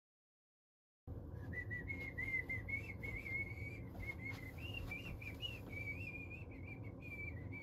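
A person whistling a wavering tune, starting about a second in, faint over a low room rumble.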